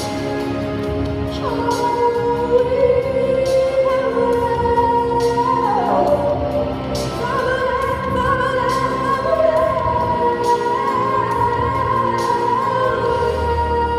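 A young female singer sings over musical accompaniment, holding long notes, with a sliding drop in pitch about six seconds in.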